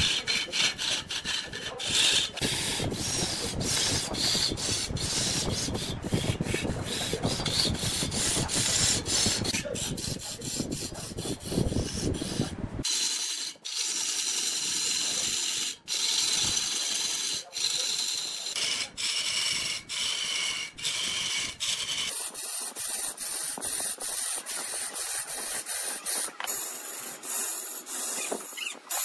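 Woodturning on a lathe: a steady scraping and rasping of tool or abrasive against the spinning wood. About 13 s in the sound changes abruptly, losing its low rumble and leaving a thinner, higher scrape, and it shifts again about 22 s in.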